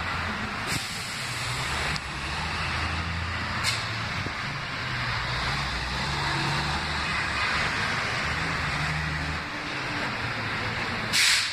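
Road traffic: a heavy vehicle's engine running low and uneven under a steady rush of noise, with brief sharp hisses. The loudest hiss comes about a second before the end.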